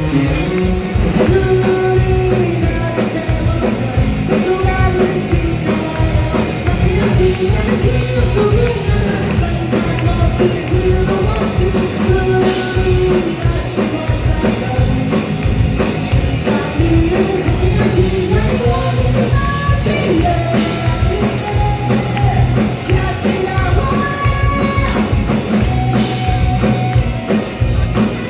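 Live rock band playing loud and full, with drum kit and a singer's voice over it.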